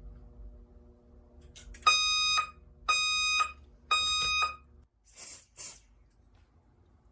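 Fire alarm horn sounding three half-second blasts about a second apart, the temporal-three evacuation pattern, set off briefly as a device is tested in walk-test mode. Two short bursts of hiss follow.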